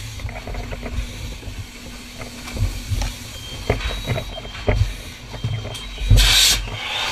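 Knocks, scuffs and rustling of firefighters' gear and hose line as a hose crew advances, over a steady low rumble, with a short loud hiss about six seconds in.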